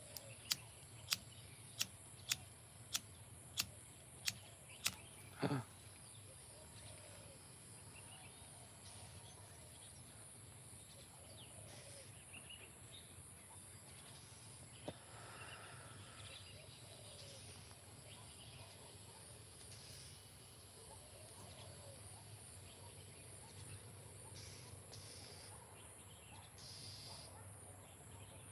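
A run of eight sharp, evenly spaced clicks, about two a second, near the start. A quick falling sweep follows, over a steady high insect buzz.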